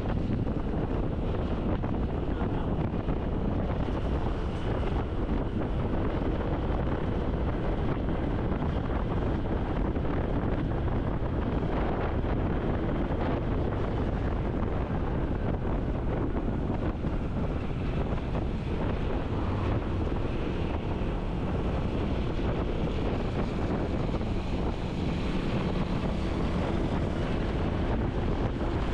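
Steady wind buffeting the microphone of a moving vehicle, over a continuous rumble of road and traffic noise.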